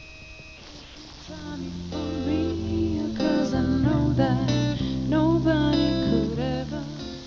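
Music with guitar and a singing voice, starting about a second in and fading near the end, over a faint steady hum.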